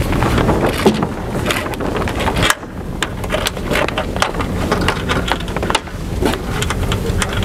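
Wind buffeting the microphone in a low, uneven rumble, over small clicks and rattles of rope and metal rigging hardware (shackle and blocks) being handled.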